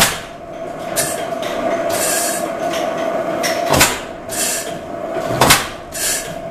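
Pattin Brothers four-cycle oilfield engine running slowly, firing with four sharp exhaust reports at uneven intervals, over a steady hiss.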